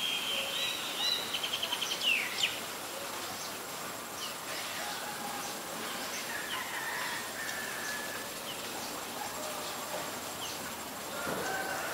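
Small birds calling in the trees: a held high note, then a quick run of chips about a second in and a short falling whistle, followed by scattered short chirps and whistles over steady outdoor background noise.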